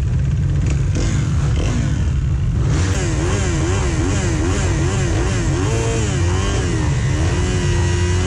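Motocross dirt bike engine revved up and down repeatedly, about two to three blips a second, then held at a steady high rev near the end, while the bikes wait at the starting gate for it to drop. Other bikes' engines run alongside it.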